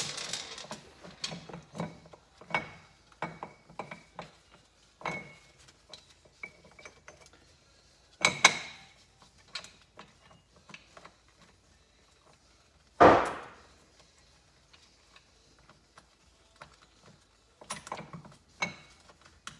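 Scattered metallic clinks, knocks and short rings of a Kawasaki KZ400 engine's cam sprocket, cam chain and hand tools being worked by hand, as the cam sprocket is freed from the camshaft. A sharper ringing clink comes a little under halfway, and a single heavy thud, the loudest sound, about two-thirds of the way through.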